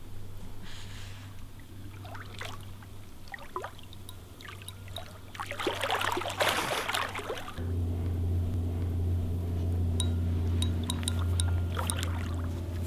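Water splashing as a large hooked wels catfish thrashes at the surface next to the bank while it is played to the net, the loudest splashing about six seconds in. A steady low hum comes in just after that and lasts to the end.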